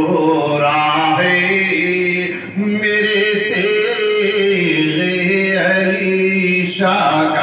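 A man singing a manqabat, an Urdu devotional poem, unaccompanied into a microphone, in long held notes that step from pitch to pitch.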